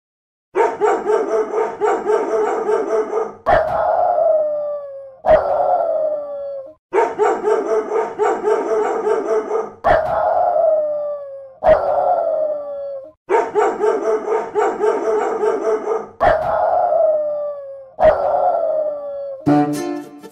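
Dog howling in a repeating pattern: one long, wavering howl, then two shorter howls that fall in pitch, the set heard three times. Brass music begins near the end.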